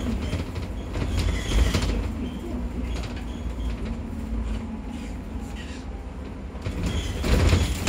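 Double-decker bus driving, heard from the upper deck: a steady low rumble of the engine and road noise with cabin rattles. The noise swells briefly about a second and a half in and again near the end.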